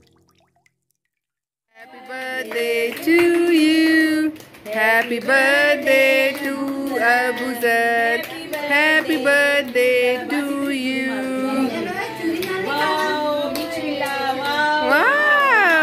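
A birthday song sung in high voices, starting after about two seconds of near silence. Near the end a long note slides up and then falls away.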